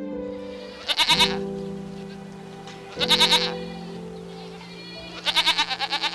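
Three short, quavering bleats, about a second, three seconds and five seconds in, over background music with held notes.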